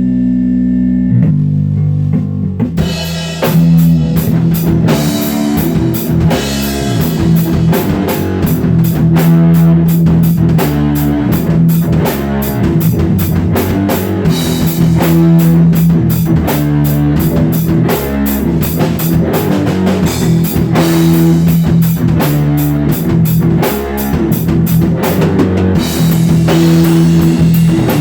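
Live rock jam on drum kit and guitar. A held chord rings for about the first two and a half seconds, then the drums come in with a steady, driving beat under a repeating low riff.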